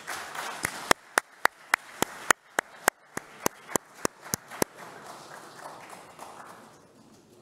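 Applause in a large hall, with one person clapping loudly and evenly close to a microphone, about three or four claps a second for some four seconds, over the softer clapping of the room.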